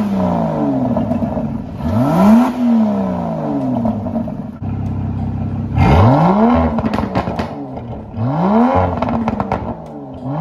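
Aston Martin DBS Superleggera's twin-turbo V12 revved at standstill, heard at the exhaust tips: four quick blips that rise and fall, the first two in GT mode and the last two in Sport Plus mode, with crackles as the revs drop after the later blips.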